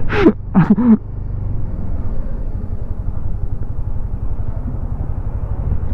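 Motor scooter engine running at idle, a steady low rumble.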